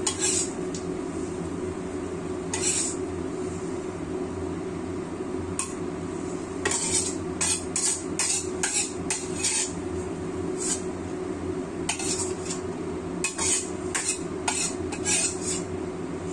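Metal spatula scraping and clinking against a wok as stir-fried fish and sauce are scooped out onto a plate, in many short strokes that come mostly in the second half. A steady low hum runs underneath.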